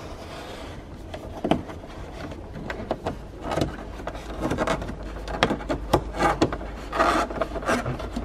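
Rubber weather strip being pressed and pushed along the edge of a plastic rear pillar trim panel in a BMW E46 Touring: rubbing and scraping with many small clicks and taps, a few louder scrapes in the middle and near the end.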